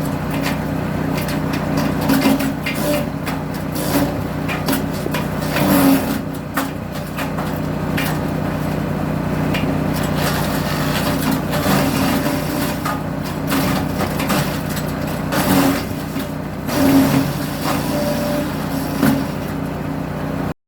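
Small petrol engine of a CT319 wood chipper running steadily, with irregular cracks and knocks of wood being chipped.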